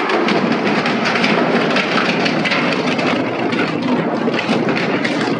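Heavy industrial shredder grinding and crunching material: a dense, loud, continuous clatter of cracks and snaps.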